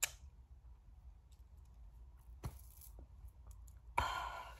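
A woman sighing, a heavy breath out that starts suddenly near the end and fades. Before it the room is quiet apart from a couple of short clicks.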